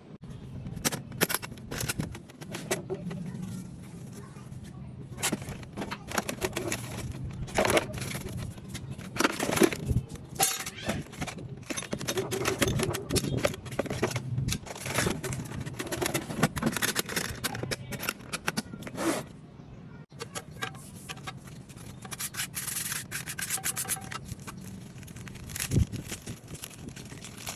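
Irregular scraping and rubbing with many scattered clicks and knocks over a low steady hum.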